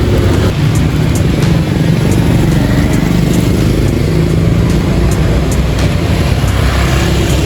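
Steady motor-vehicle traffic noise, a continuous engine rumble.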